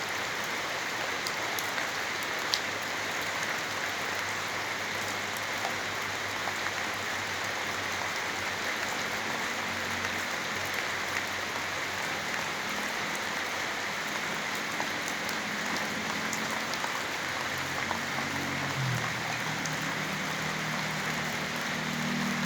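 Steady rain falling, with scattered single drips ticking sharply over the even hiss. A faint low hum comes in under it partway through.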